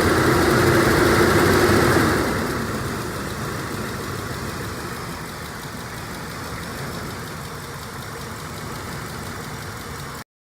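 Lincoln Aviator's 4.6 L DOHC V8 running: it runs louder for about two seconds, then settles to a steady, quieter idle, and the sound cuts off abruptly near the end.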